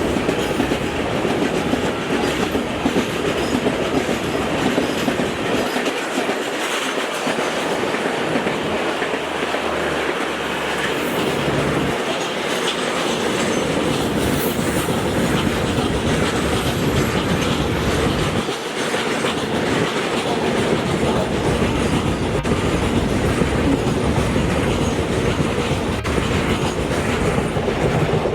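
Train running at speed on the line, a continuous rumble with the clickety-clack of wheels over the rail joints.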